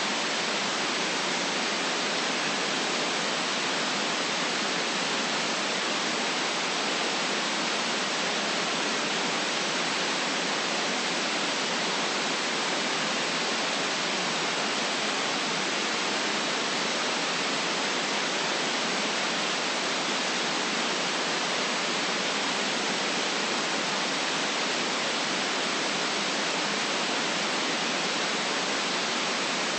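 Steady white noise: an even, unchanging hiss with little deep low end.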